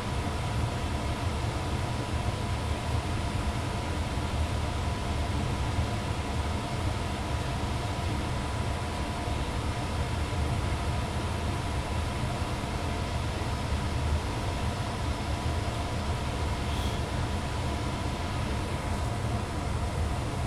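2002 Ducane furnace's blower running steadily: an even rumble of moving air with a faint constant motor tone.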